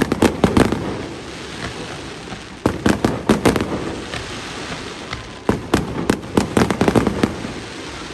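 Fireworks display: volleys of sharp bangs from bursting shells, in three clusters at the start, about three seconds in and around six to seven seconds in, with a rolling rumble of echo between them.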